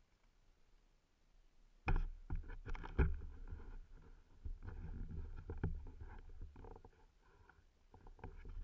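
Irregular low rumbles, rustles and dull knocks on a helmet-mounted camera's microphone, starting about two seconds in, the loudest knocks near the start.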